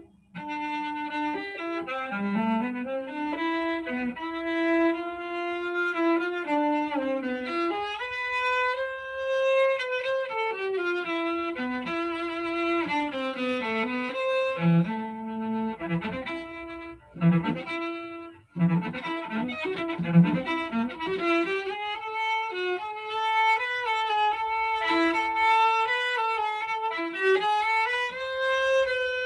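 Cello played with the bow: a single melodic line of mostly long, connected notes, with a few short, separated low notes and a brief break about eighteen seconds in.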